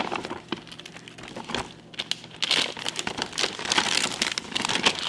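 Crinkling and rustling of candy packages as they are packed into a gift bag. It comes in fits and starts with small knocks, sparse at first and busier from about two seconds in.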